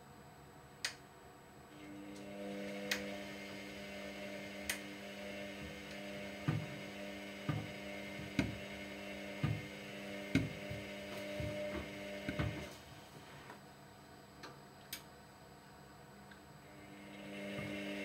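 Front-loading washer-dryer drum turning: its motor hums from about two seconds in, with knocks about once a second as the load tumbles. The motor stops for a few seconds and starts up again near the end.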